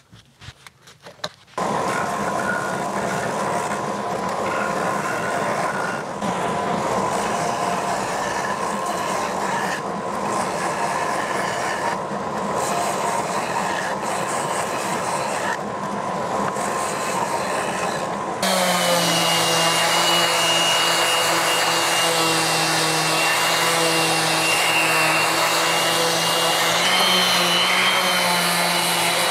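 Electric power tools running steadily. A noisy machine starts about a second and a half in; about 18 seconds in it gives way to a different machine with a steady hum and a high whine.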